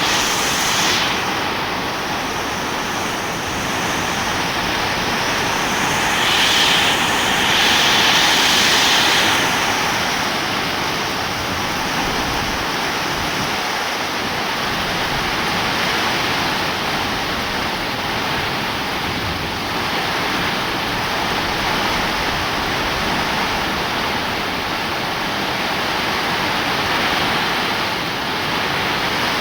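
Steady heavy rain falling, a dense even hiss that swells a little louder for a few seconds about six seconds in.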